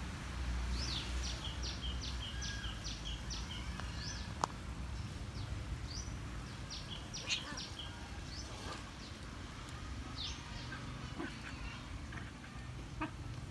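Bird chirping outdoors in quick runs of short, high calls, one run early and another after a pause, over a steady low rumble. Two sharp clicks stand out, one a little after the middle and one a few seconds later.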